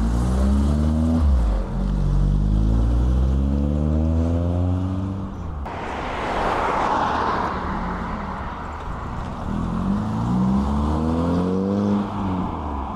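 Cars pulling out onto a road and accelerating away one after another. First a red classic Ford Escort revs up through the gears, its engine pitch climbing and then dropping back at each change over the first five seconds. After a rush of passing-car noise, a silver Volkswagen Bora pulls away with its engine pitch rising again near the end.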